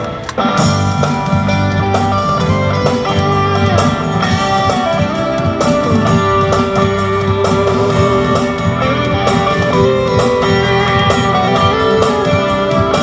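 Background music with guitar and drums, starting about half a second in.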